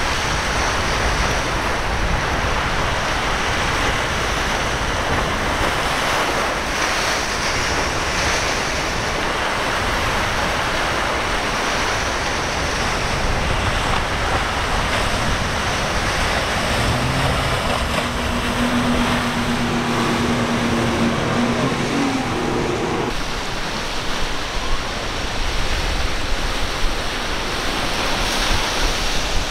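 Rough surf breaking and rushing with wind buffeting the microphone, a steady loud hiss of water. Past the middle a low steady hum joins for several seconds and stops abruptly.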